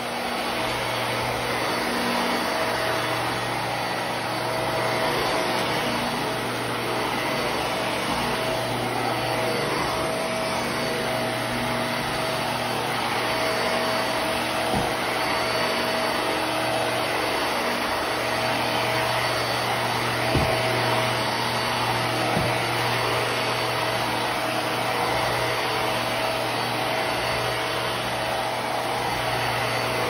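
Hart Pet Grade upright vacuum cleaner running steadily while pushed over carpet, an even motor hum at constant pitch. A couple of small knocks come about two-thirds of the way in.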